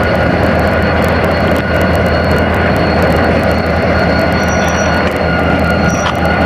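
Diesel locomotive of a broad-gauge passenger train running steadily at idle, a low even drone with a thin high whine over it.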